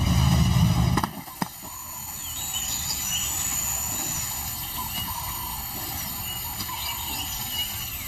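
Open safari vehicle's engine running, cut off abruptly about a second in. A single click follows, then quieter outdoor bush ambience with a few birds chirping.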